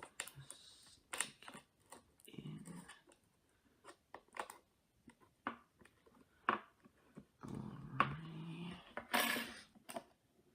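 Scattered small clicks and taps of tools working the tiny screws that hold an iPad 2's new charging port, with a louder scrape about nine seconds in. Two short low voice-like sounds come about two seconds in and near eight seconds.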